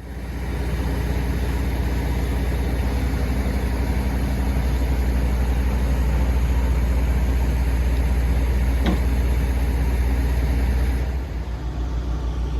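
An engine running steadily at idle. About eleven seconds in, the sound drops a little and turns into a lower, pulsing note.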